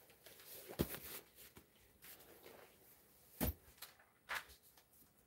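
Faint handling noises: a few sharp clicks and knocks, one about a second in, one at about three and a half seconds and one near four and a half seconds, with softer ticks between.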